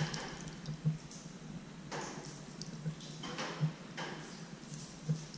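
Water splashing onto a car's Rain-X-treated windshield and window glass and running off it, in several separate splashes about a second apart. The strongest splash comes at the very end, over a low steady hum.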